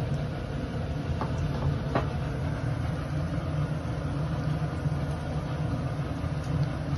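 Steady low mechanical hum of a running motor or fan, with a couple of faint clicks about one and two seconds in.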